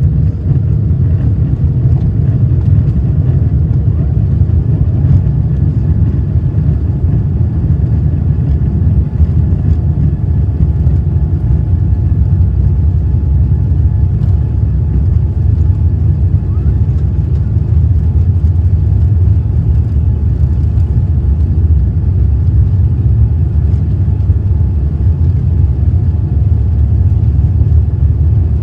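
Boeing 787-8 cabin noise during the takeoff roll: the engines at takeoff thrust and the rumble of the wheels on the runway make a loud, steady low roar as the jet picks up speed. The roar swells in the first second, then holds.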